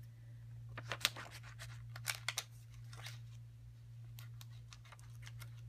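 Scissors snipping through a sheet of vinyl nail wraps: short, crisp cuts that come in small clusters about a second apart.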